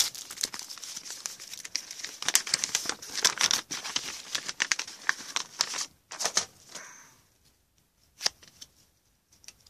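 Trading card pack wrapper being torn open and crinkled in the hands, a dense crackling for about six seconds, then a few faint clicks as the cards are handled.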